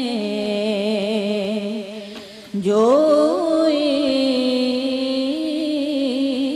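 A woman singing a naat solo into a microphone, holding long, wavering notes. About two and a half seconds in she briefly drops off, then starts a new, louder phrase that rises in pitch.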